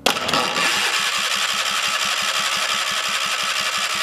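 Air-cooled two-cylinder John Deere Gator engine, sitting loose on a bench with no exhaust fitted, catching at once as it is started and running loud and steady at idle with an even, rapid firing pulse.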